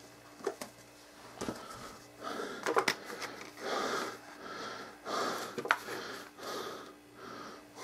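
Packaging being handled on a table: a plastic-backed SD card blister pack and a paper leaflet set down and slid about, with several sharp clicks and rustles. Soft breathing close to the microphone swells in and out between them.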